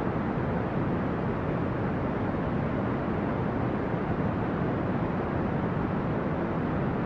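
Steady brown noise: an even, deep rushing hiss, strongest in the low end and fading toward the highs, with no change over time.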